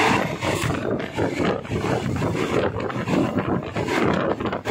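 Passenger train running along the track, heard from on board: a steady rumble of wheels and rushing air, with irregular rattling and clatter.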